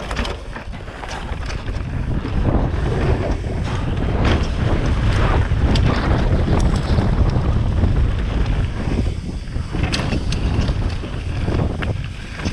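Wind buffeting a helmet-mounted GoPro microphone as a mountain bike descends a rocky trail at speed, with the bike rattling and knocking over the stones.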